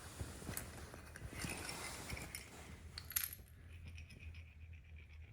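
A jingling cat toy with a small ball inside, being played with by a dog: scattered light jingles and clicks for about three seconds, then it goes quieter.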